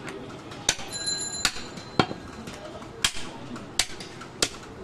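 Butcher's knife chopping goat leg meat on a wooden tree-stump block: about six sharp knocks of the blade hitting the wood, spaced unevenly.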